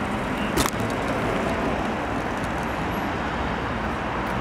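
Steady urban road traffic noise, with a single sharp click about half a second in.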